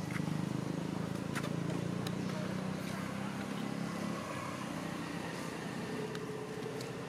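A motor vehicle's engine running with a low steady hum that eases off about four seconds in.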